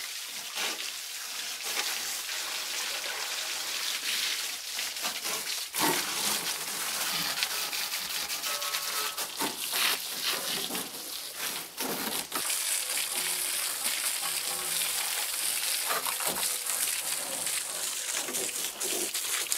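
Water from a garden hose spraying onto a tractor's tyres and rear linkage: a steady splashing hiss.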